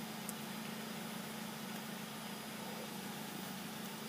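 Steady low hum of a Nissan Sentra's four-cylinder engine idling, heard from inside the car's cabin.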